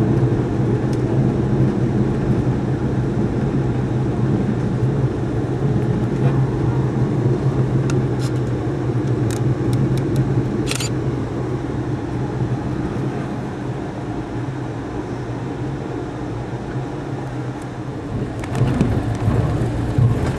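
Running noise of a moving passenger train heard from inside the coach: a steady rumble of wheels on the rails with a constant low hum under it. A few short sharp clicks come between about 8 and 11 seconds in, and the rumble turns rougher and louder near the end.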